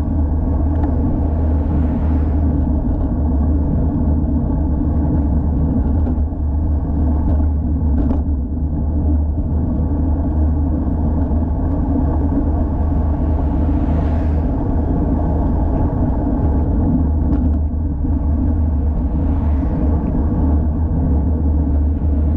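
Steady low rumble of wind buffeting an action camera's microphone and road noise while riding a road bicycle, with a few faint ticks.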